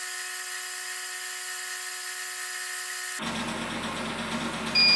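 Akafusion CB315-U electrofusion welder running a weld cycle into a resistive load, a steady electrical whine and hiss with a fuller hum coming in about three seconds in. Right at the end a short, high beep sounds as the weld cycle finishes.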